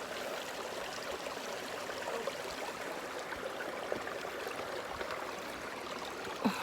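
Sea water washing steadily at the shore, an even rushing hiss.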